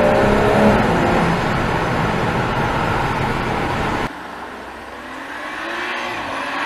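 BMW M135i's 3.0-litre single-turbo straight-six on its stock exhaust, heard from inside the cabin while driving through a road tunnel: loud, steady running under load, its note rising slightly at first. About four seconds in it cuts to the same car heard from the roadside, quieter, its engine note climbing as it accelerates toward the microphone.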